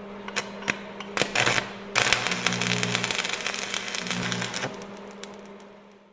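Electronic logo sound effect: a steady low hum with scattered clicks, then a burst of crackling, static-like noise about two seconds in that slowly fades out near the end.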